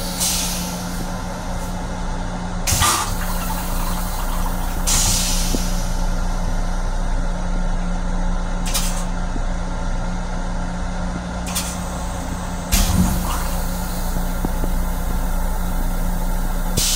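Running noise of an LIRR M7 electric railcar heard inside its restroom: a steady rumble with a constant low hum. About six short bursts of air hiss come through it, the loudest about thirteen seconds in.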